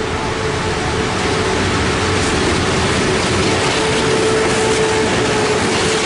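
A train of three CM-class diesel locomotives hauling a wheat train passes close by with a steady engine drone and a held tone in it, followed by the rolling of the grain hopper wagons with some clicking of wheels on rail joints near the end.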